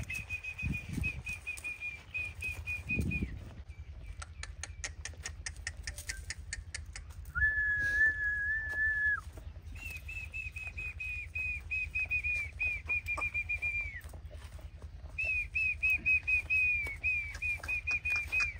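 Runs of short high whistled notes, about four a second, each slurring slightly downward, with a run of quick clicks and then one long steady whistle about halfway through, over a low steady hum.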